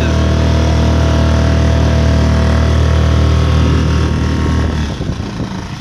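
Small outboard motor running steadily, pushing a folding boat along. About five seconds in its sound drops and turns uneven.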